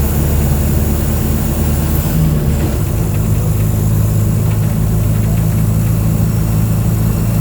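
Diesel engine of a Mercedes-Benz OF 1722M city bus running steadily. About two to three seconds in, its low note shifts to a higher, stronger tone as the engine speed changes.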